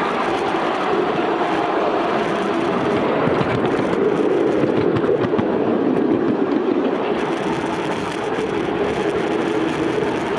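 Backyard ride-on miniature train rolling along its track, a steady rumble of wheels on rail that grows a little louder around the middle.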